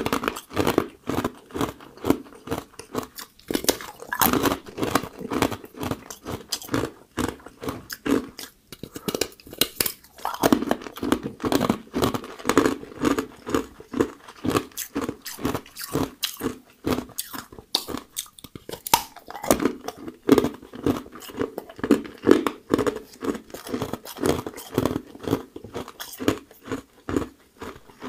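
Ice cubes being bitten and chewed: a fast, steady run of sharp crunches, broken by a few brief pauses.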